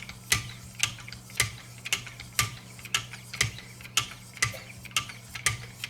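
3000-grit diamond sharpening stone stroked along a VG-10 knife edge on a guided-rod sharpener, a sharp rasping scrape about twice a second in a steady rhythm, finishing the diamond-stone stage before lapping films.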